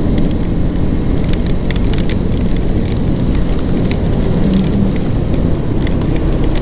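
Steady rumble of wind and tyres on a wet road while riding a KTM Duke 200 in drizzle, its single-cylinder engine running underneath. Many small raindrop ticks hit the microphone.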